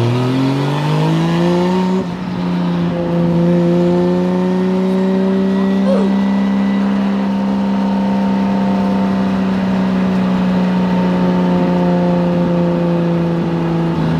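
Drift car's engine heard from inside the caged cabin, revving up over the first couple of seconds and then held at high, steady revs for about ten seconds, dipping slightly near the end.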